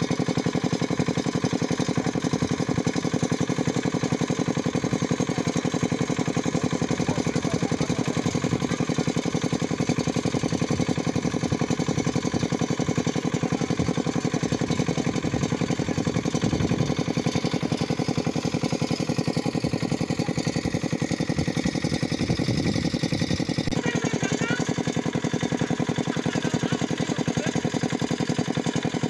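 Small single-cylinder stationary engine of a pump set running steadily with a fast, even beat, driving a water pump that is draining a pond through a long suction hose.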